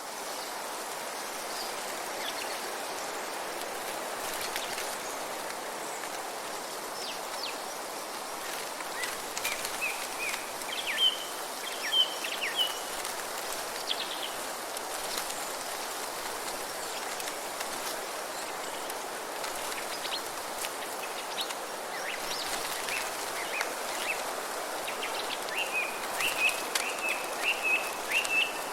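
Wind blowing through forest trees as a steady rushing, with birds chirping over it. The birds give quick series of short high notes about ten seconds in and again near the end.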